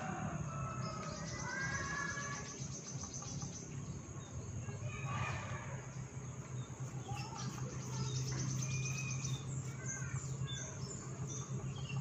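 Birds chirping and insects trilling over a steady low hum.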